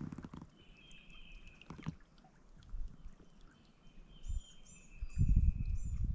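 Birds calling: thin, steady high whistles, then a run of four short high chirps about a second apart. A low rumble comes in about five seconds in.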